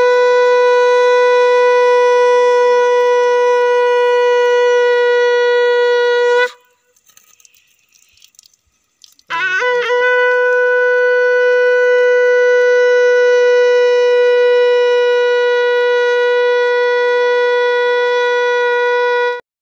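Conch shell (shankh) blown in two long, steady blasts on one note. The first cuts off about six seconds in; after a pause of about three seconds the second starts with a quick wavering rise in pitch and holds until just before the end.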